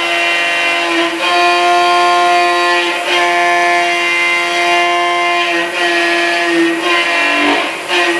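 CNC milling spindle and cutter machining a metal block: a steady high whine with overtones that shift as the cut changes, briefly dropping in pitch near the end.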